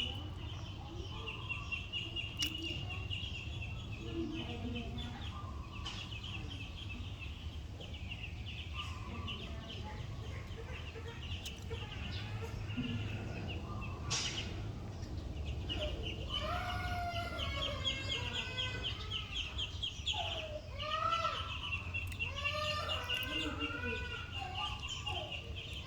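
Birds calling, with many short rising-and-falling calls crowding in during the second half, over a steady high-pitched trill.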